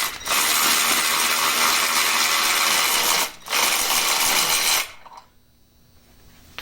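A handheld power tool runs in two long bursts, about three seconds and then just over a second, with a short pause between. It is backing out a bolt that holds the alternator bracket on the engine.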